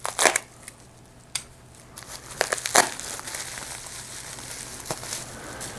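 Packaging being crinkled and handled as it is opened, in a few short rustling bursts, the loudest about three seconds in.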